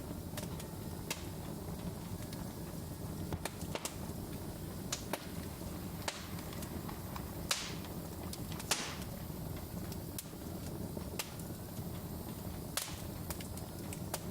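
Wood fire crackling: a steady low rumble of flames with frequent sharp pops and snaps, two of them louder a little past the middle.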